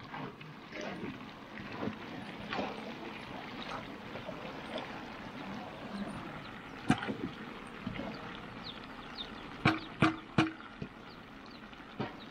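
Pork frying in a large pan, with liquid bubbling steadily and scattered clicks. There are sharp knocks of metal utensils on the pan, one about seven seconds in and three in quick succession near ten seconds.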